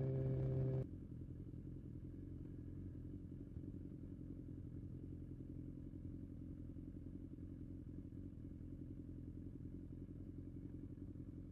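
BMW S1000XR's inline-four engine idling steadily while the bike stands still. In the first second a louder, steady riding note cuts off abruptly.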